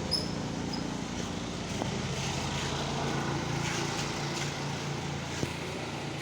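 Steady mechanical hum of a running motor, with a couple of faint clicks.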